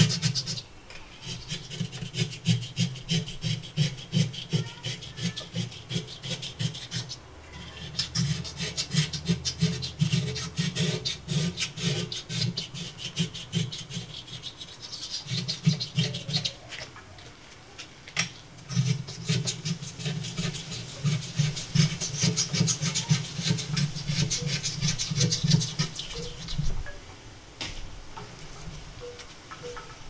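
Razor blade scraping calcium deposits off aquarium glass in rapid back-and-forth strokes, stopping briefly a few times. The scraping gets quieter over the last few seconds.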